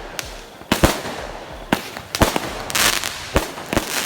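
Fireworks and firecrackers going off: a string of sharp bangs at uneven intervals, about seven in all, with a longer crackling burst about three seconds in.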